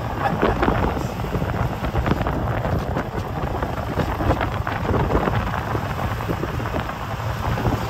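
Wind buffeting the microphone on a moving open-sided golf cart, over the cart's running and road noise.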